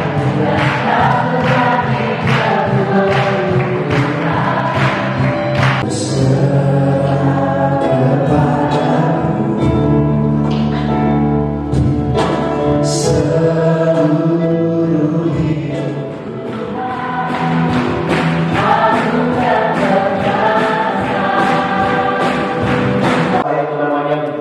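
A large group singing a worship song together as a choir, accompanied by keyboard. The sound dips briefly about two-thirds of the way through, then the singing picks up again.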